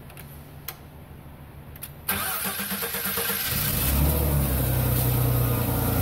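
Two clicks, then about two seconds in a starter briefly cranks a Hyster forklift's LPG engine, which catches after about a second and a half and settles into a steady idle. It starts readily with a newly fitted fuel vaporizer, the fix for its no-start caused by excessive fuel.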